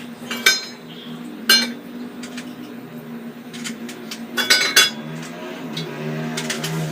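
Metal kitchen utensils and cookware clinking: single sharp clinks with a short ring about half a second and a second and a half in, then a quick cluster of clinks a little past the middle, over a steady low hum.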